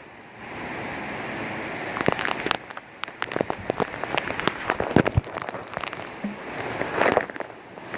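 Thunderstorm rain, a noisy wash with many sharp taps of drops striking nearby surfaces, the taps growing thick about two seconds in.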